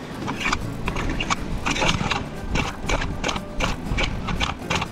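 A Honda Ruckus scooter being kick-started again and again: a quick, irregular string of clacks from the kick-start lever as the engine turns over without catching.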